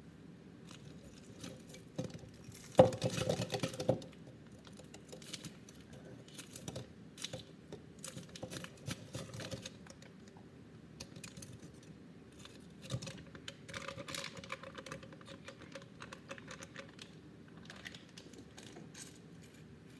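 Crinkling plastic freezer-pop sleeves and small clicks and taps as the frozen pops are squeezed out and knock into a blender jar, with a louder cluster of knocks about three seconds in.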